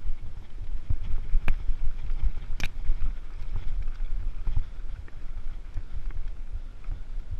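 Mountain bike riding fast down a dirt trail: a steady low rumble of tyres and frame rattle, with two sharp knocks about a second and a half in and again a second later.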